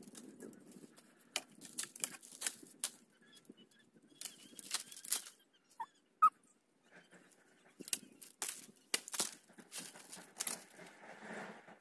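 Dry leaves and branches rustling and snapping in irregular bursts of crackles, with two short high chirps about halfway through.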